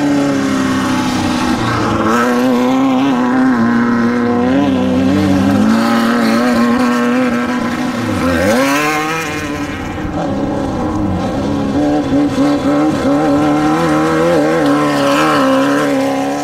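Desert race vehicle's engine running hard, its pitch rising and falling with the throttle. About eight seconds in the pitch dips sharply and climbs back.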